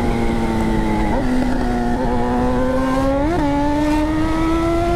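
Honda CB1000 inline-four motorcycle engine with a straight-pipe exhaust, heard from the rider's seat while riding: steady cruising revs climbing slowly, with a small step up about a second in and a brief rise and fall in revs about three and a half seconds in.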